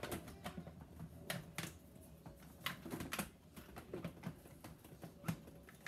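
Plastic clicks and taps as the lid is fitted back onto a Ninja blender pitcher and pressed into place: a scattering of faint, sharp, irregular clicks.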